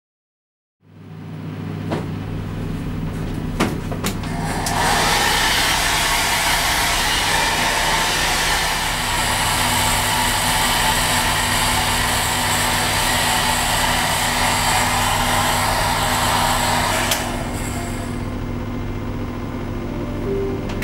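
Handheld hair dryer running: a steady motor hum, with a loud rush of blown air from about four seconds in that cuts off with a click at about seventeen seconds, leaving the lower hum.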